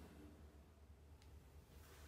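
Near silence: room tone with a faint steady low hum and a single faint tick about a second in.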